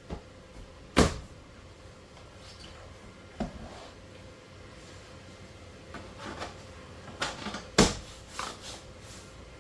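3D-printed plastic table parts knocking and clacking as they are handled and fitted together: two sharp knocks, about a second in and near the end, with lighter clatter between.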